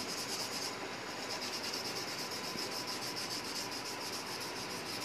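Coloured pencil shading on paper in rapid, even back-and-forth strokes: a steady rhythmic scratching.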